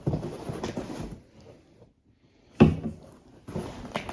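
Beer cans and bottles being handled in a cardboard shipping box: rustling and shuffling, with a sharp clunk about two and a half seconds in as one is set down or knocks against another.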